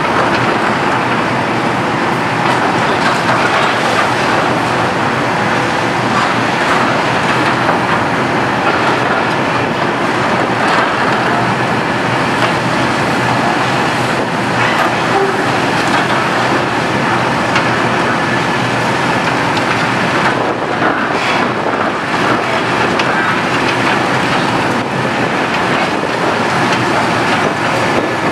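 Liebherr R974B HD-EW high-reach demolition excavator at work: its diesel engine and hydraulics running steadily, with a dense irregular crackle of concrete being broken up and debris falling.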